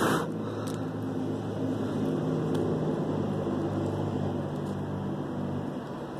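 A steady low mechanical hum made of several low tones, which stops shortly before the end, with a short burst of noise right at the start.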